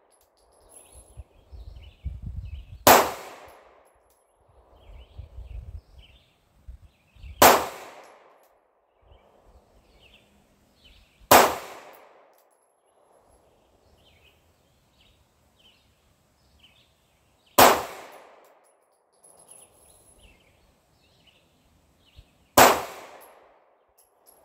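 Sig Sauer P226 pistol fired slow and deliberate, one aimed shot at a time: five sharp shots, each four to six seconds after the last.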